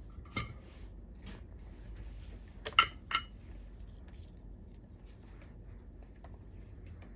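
A few small sharp clicks and clinks of hard tools and parts being handled on a workbench during soldering, the loudest a close pair about three seconds in.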